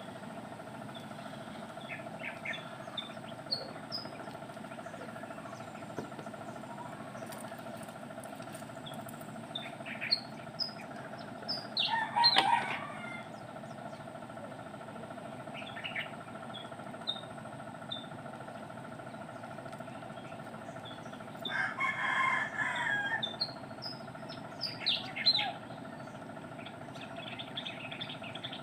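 Birds calling over a steady background hum: short, high chirps scattered throughout, and two louder, longer calls about twelve and twenty-two seconds in.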